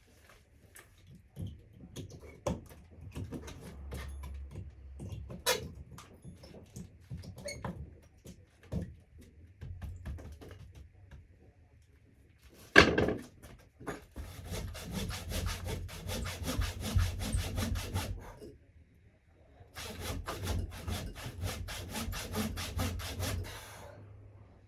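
Handsaw cutting a log in two bouts of quick back-and-forth strokes with a short pause between. Before the sawing there are scattered knocks and scrapes of wood, and a single loud knock just before the first bout.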